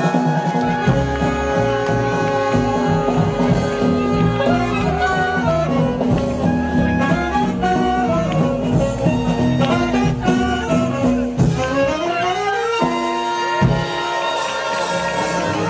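Live swing jazz band playing an instrumental passage with horns out front, over a steady rhythm section. About twelve seconds in the horns climb in a rising run of notes to a held chord.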